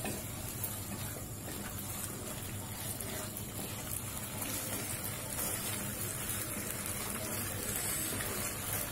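Chili mushroom in sauce sizzling and bubbling steadily in a kadai over a high gas flame while a wooden spatula stirs it.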